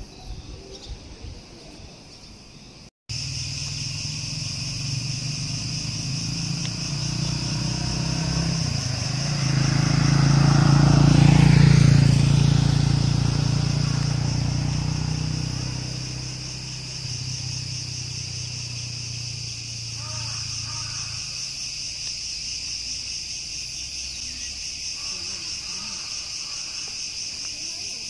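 Steady chorus of insects, a high shrill drone with a fine pulsing texture, starting abruptly about three seconds in. A low rumble swells and fades in the middle.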